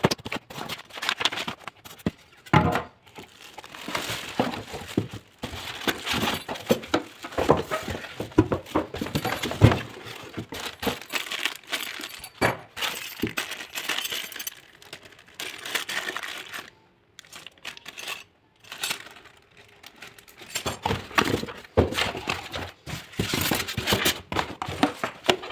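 Unboxing handling noise: packaging crinkling and rustling, with irregular clicks and knocks as the rework station's parts are taken out. It stops briefly about two-thirds of the way through.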